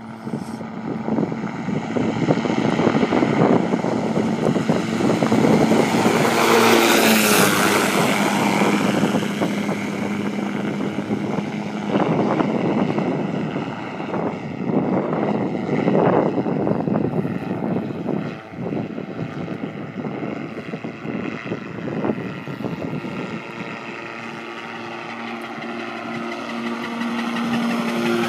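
Radio-controlled model autogyro in flight, its motor and pusher propeller running with a steady hum. The sound swells and the pitch bends about seven seconds in, with short surges of rushing noise around twelve and sixteen seconds.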